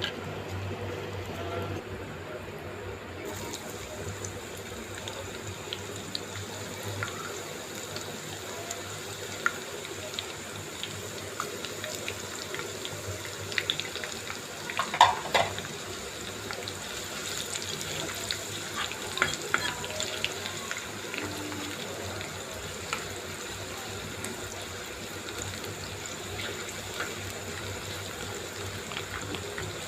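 Kitchen cooking sounds: a steady hiss with scattered clinks and taps of utensils, a cluster of them about halfway through.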